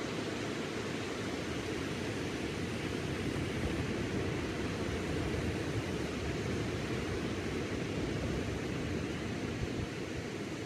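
Surf: small ocean waves breaking and washing on a sandy beach, a steady rush of water.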